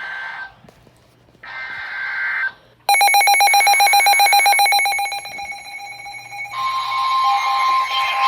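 NOAA Weather Radio Emergency Alert System alert starting: the end of one screechy digital header data burst, then a second burst a second later. About three seconds in, a loud steady alert tone begins, pulsing rapidly, and a second, higher tone with static hiss joins near the end.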